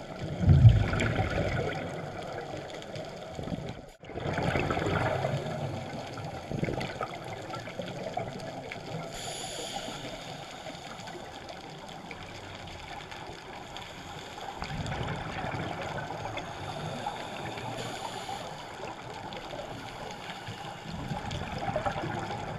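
Muffled underwater noise heard through a camera housing, with surges of gurgling from scuba divers' exhaled regulator bubbles every few seconds. A loud low knock comes about half a second in, and the sound drops out briefly around four seconds in.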